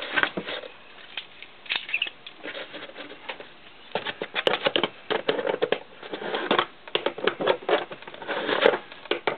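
Slip-joint pliers clicking and scraping on a brass antenna mount nut as it is tightened down, with a quick run of small metal clicks from about four seconds in.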